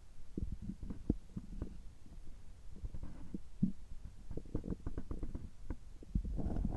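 Human stomach and gut gurgling close up, right after a gastroscopy: irregular soft pops and bubbling, with a longer gurgle near the end.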